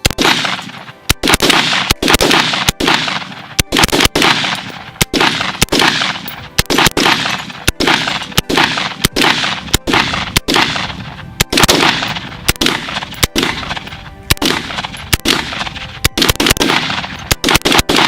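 AR-type rifle fired rapidly in semi-automatic, about two shots a second for the whole stretch with a few short pauses, each shot trailing off in an echo.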